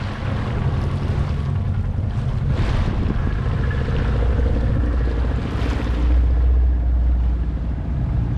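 Small fishing boat under way at sea: its motor running steadily, with water rushing along the hull and wind buffeting the microphone.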